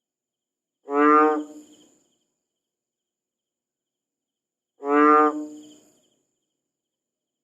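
A frog calling twice, about four seconds apart: each call a short, pitched croak of about half a second.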